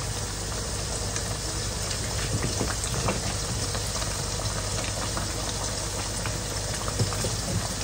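Beef pieces in spice masala cooking in their own juices in a large pot, a steady bubbling sizzle. Cooking oil is poured in near the end.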